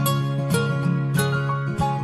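Background music: a melody of plucked notes over a held bass note.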